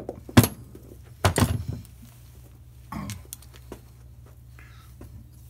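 Metal clicks and knocks as an AMMCO brake lathe's disk feed gearbox housing and its gears are handled and set down on the bench: a sharp click about half a second in, a short cluster of clinks with some ringing about a second later, and a lighter knock near three seconds.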